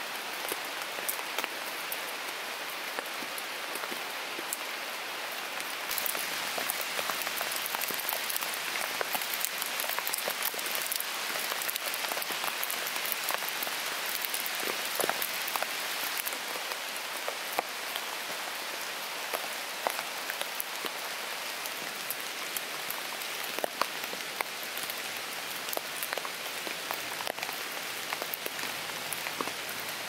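Steady rain falling, with many individual drops ticking on fallen leaves and a tent fly; the rain grows a little louder about six seconds in.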